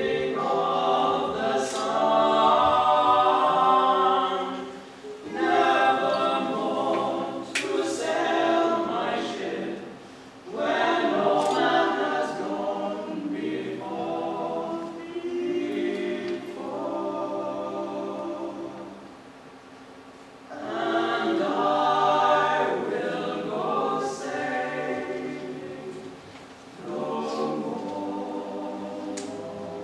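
A small group of young male voices sings unaccompanied in close harmony. The chords are held in phrases several seconds long, broken by short breathing gaps.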